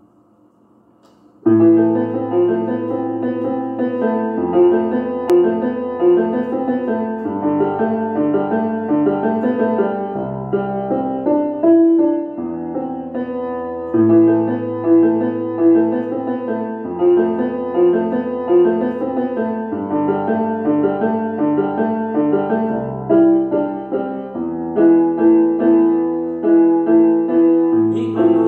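Electronic keyboard played with a piano sound, both hands: held chords over a bass line that changes every few seconds, starting about a second and a half in.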